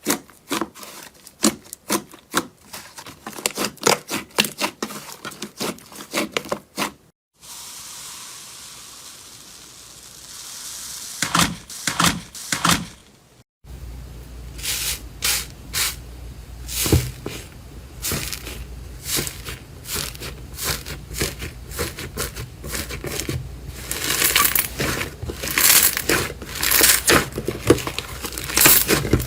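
Close-miked slime and soap ASMR sounds in three short clips: dense crackling clicks and pops, a stretch of steady hiss, then tearing and crinkling that grows louder near the end.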